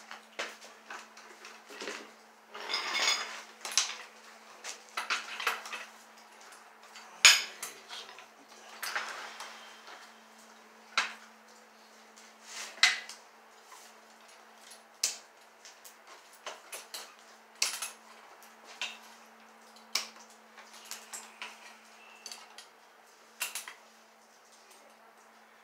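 Irregular metallic clicks, taps and short scrapes of a screwdriver and wires being worked in a metal electrical box overhead, with one sharper click about seven seconds in.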